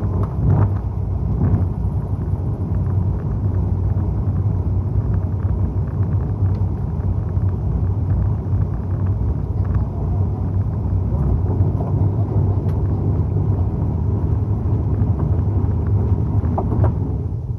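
Fishing boat's engine running steadily with a low rumble.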